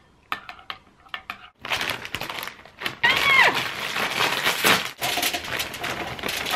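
A metal spoon clinks against a glass bowl a few times, then a plastic snack bag crinkles as it is handled, and puffcorn snacks pour out onto a foil-covered tray near the end.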